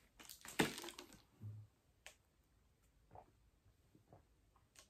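A plastic drink bottle being handled and its screw cap twisted off: a few sharp clicks and taps in the first second, then faint small sounds while it is drunk from.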